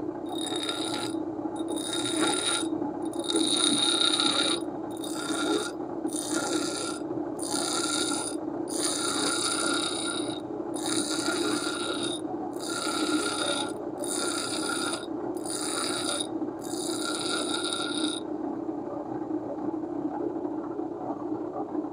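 Pedestal grinder's motor humming steadily while a square lathe tool bit is pressed against the spinning abrasive wheel in about a dozen passes, each a high-pitched grind with a ringing tone. The passes form the tool's front clearance face. The grinding stops a few seconds before the end, leaving only the motor hum.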